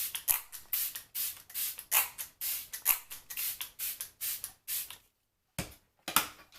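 Pump spray bottle of face mist sprayed over and over, short hissing puffs about two to three a second; they stop about five seconds in, then two more puffs near the end.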